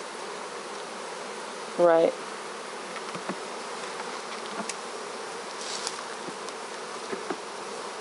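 Honeybees buzzing steadily around an open hive, with a few faint clicks.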